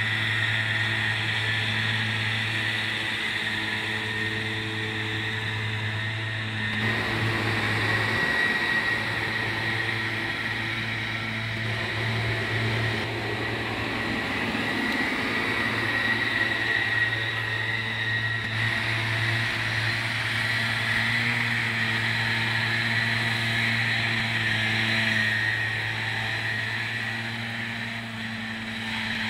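McCormick MTX135 tractor running steadily under load, driving a disc mower through tall grass, with a deep steady hum and a constant high whine over it.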